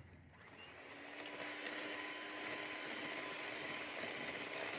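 Electric mixer motor starting up and running steadily, beating eggs and sugar for a cake batter. It comes up over about the first second, then holds an even pitch.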